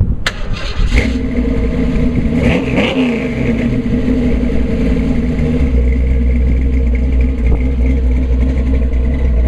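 The Ford 351 Windsor V8 of a Model A street rod running, its pitch rising and falling in a short rev about three seconds in, then holding steady.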